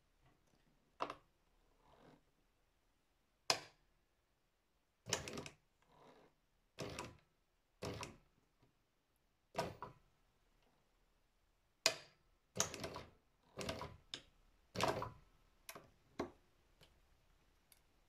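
Irregular short scrapes and knocks, about a dozen spread unevenly, as hands pull thread and handle the work on the embroidery machine's table. The machine itself is not running.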